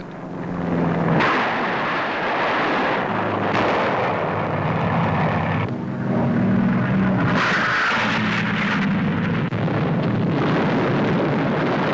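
Propeller fighter aircraft engines running steadily, with a rushing noise over them that shifts in strength several times.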